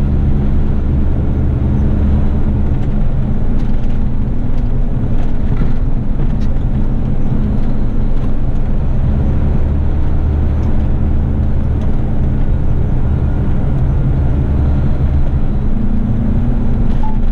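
Heavy rigid truck's diesel engine running steadily under way, a continuous low drone mixed with road noise, heard from inside the cab.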